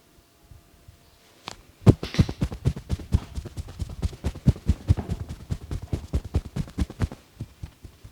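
Rapid percussive massage strokes, hands striking the neck and shoulders in a fast rhythm of about eight slaps a second. The strikes start with the loudest one about two seconds in and stop abruptly about a second before the end.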